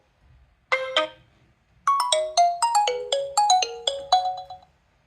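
A Nokia 3.1 Plus stock ringtone playing. A single chime about a second in is followed by a quick run of about a dozen bright, bell-like notes, which stops about half a second before the end.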